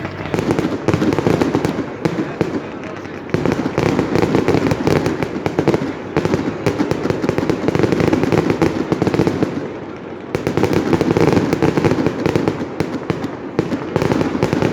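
Fireworks going off in a dense, rapid string of bangs and crackles. There are brief lulls about two seconds in and again about ten seconds in.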